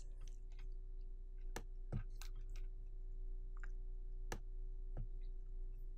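A handful of faint, scattered computer mouse clicks over a steady low hum.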